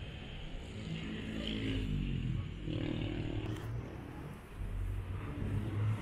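Songthaew, a pickup-truck passenger bus, engine running and revving as it drives, over a steady low road rumble. The engine note rises and falls as it changes speed.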